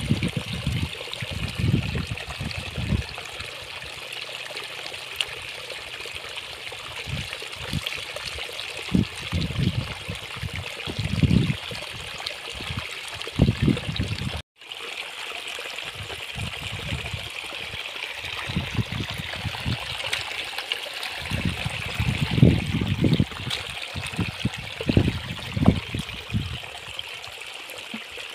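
Shallow water trickling steadily, with irregular splashing and squelching as hands dig through mud and water. The sound drops out briefly about halfway through.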